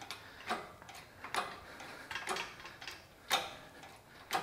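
Hydraulic engine hoist (cherry picker) being pumped a couple of strokes to raise the engine: a series of sharp metal clicks and knocks, about one a second.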